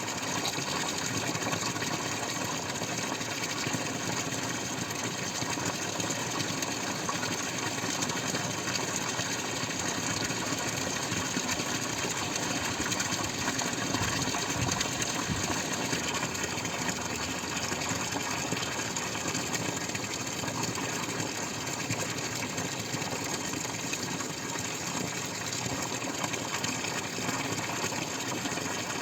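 Water dripping and splashing in a dense, continuous stream of drops, steady throughout with no separate drops standing out.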